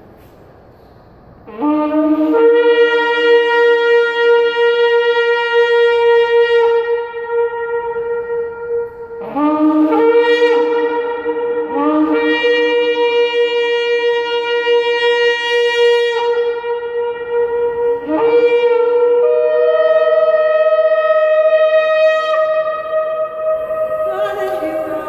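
Two ram's horn shofars blown together in long, sustained blasts, with a break and a fresh start twice. The last blast settles on a higher note. The blasts ring and echo under a marble dome.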